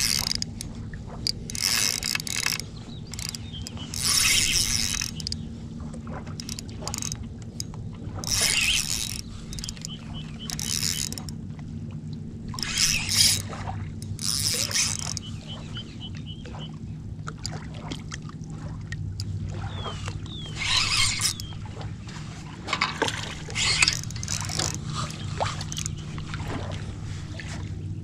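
Spinning reel cranked by hand in short bursts as line is wound in, giving a dozen or so brief rasping whirs with pauses between, over a steady low hum.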